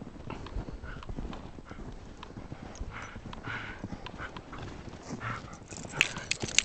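Crunching footsteps in deep snow as a dog on a leash plods and plunges through it, an irregular run of soft crackly steps. A few sharper clicks stand out about six seconds in.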